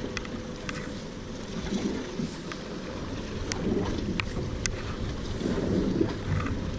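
Wind rumbling on the microphone over water around a small boat, with a few faint clicks.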